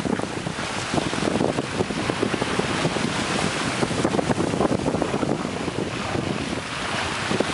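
Wind buffeting the microphone over the rush of water along a sailboat's hull under way, with crackly fingers rubbing over the microphone.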